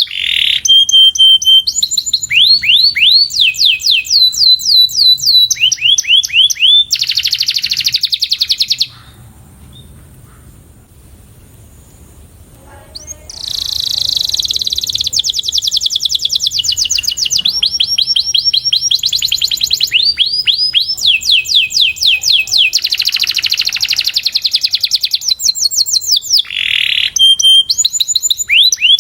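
Domestic canary singing: fast trills of repeated down-slurred notes, the phrase changing every second or two, with a pause of about four seconds a third of the way in.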